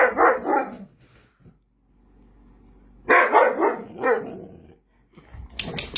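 An upset dog barking and grumbling back in three bouts: one just at the start, a longer one around the middle, and a short one near the end.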